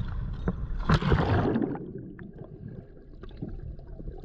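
A freediver's fins splashing at the water's surface as he dives, loudest about a second in, after which the sound turns muffled underwater: a low rumble with faint scattered clicks.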